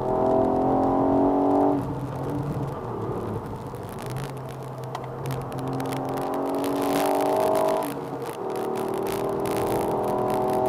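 Ford Fiesta ST's turbocharged 1.5-litre three-cylinder engine pulling hard under acceleration, heard from inside the cabin. The engine note drops away about two seconds in and again at about eight seconds, then picks up once more.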